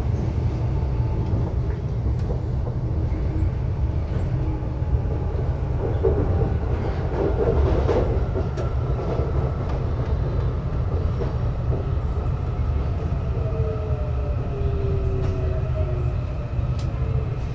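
Electric commuter train of São Paulo's CPTM Line 8 running, heard from inside the car: a steady low rumble of wheels on the rails with a few faint clicks. Faint whining tones slide down in pitch near the end as the train slows on its approach to the next station.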